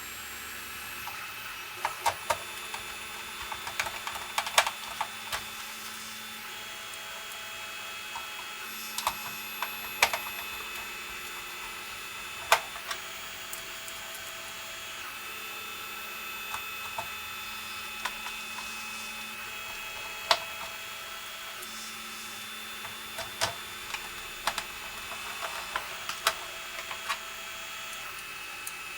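Scattered sharp clicks and light knocks as a plastic computer case and its small parts are handled and fitted together, in bunches with pauses between, over a faint steady hum.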